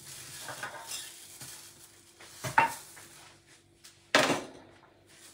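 Kitchenware and cut fruit handled on a countertop: light clicks and scraping, with two sharp knocks about two and a half and four seconds in.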